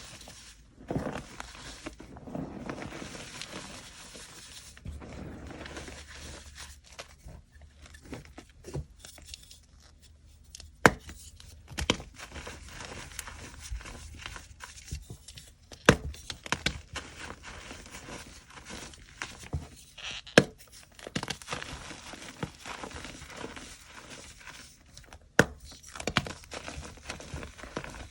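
Gym chalk being crushed and crumbled by hand: a dry crunching and crumbling, with several sharp snaps as pieces break apart.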